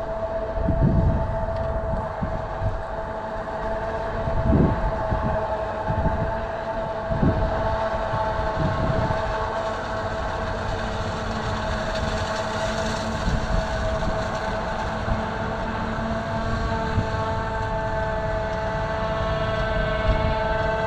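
John Deere 8400i self-propelled forage harvester running under load, a steady multi-tone whine of its chopping drum and crop accelerator over engine rumble, with a few low thumps; the whine gains extra higher tones in the last few seconds.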